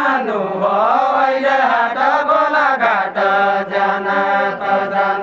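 Men singing a deuda folk song unaccompanied, in long drawn-out phrases whose pitch bends up and down, settling on a steady held note for the last couple of seconds.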